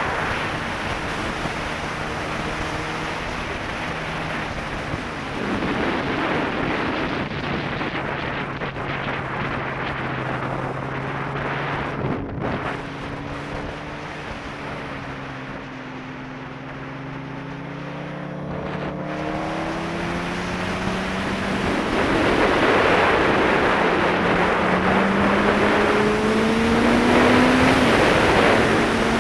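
Suzuki GSX-R sport bike's inline-four engine under way, heard from the rider's helmet: the engine note drops as the throttle eases, then climbs steadily in pitch twice as the bike accelerates. Loud wind rush on the microphone runs under it and grows stronger as speed builds near the end.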